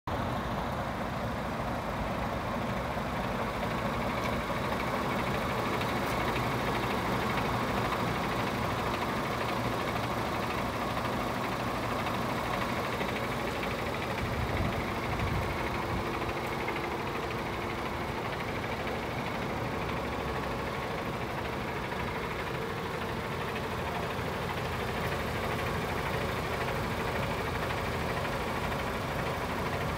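DAF CF440 tractor unit's Paccar 440 bhp Euro 6 diesel engine idling steadily.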